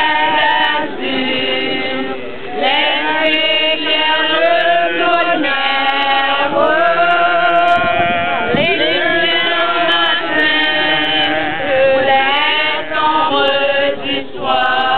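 A group of women singing together without instruments, several voices holding and gliding through a song.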